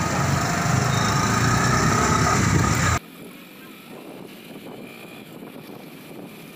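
Small motorcycle engine running with road and wind noise as it rides along. About three seconds in, the sound drops abruptly to a much quieter, even drone.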